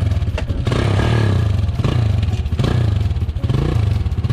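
1997 Honda XR200's air-cooled single-cylinder four-stroke engine running steadily, a second or so after being kick-started.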